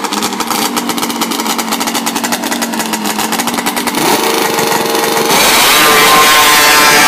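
Drag-racing snowmobile engine running with a rapid firing pulse while staging, revving up about four seconds in, then going to full throttle on the launch about a second later, louder and climbing in pitch.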